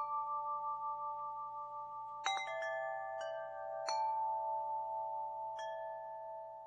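Sparse chime notes, struck a few at a time and left ringing as they slowly fade: a bell-like musical passage with no beat.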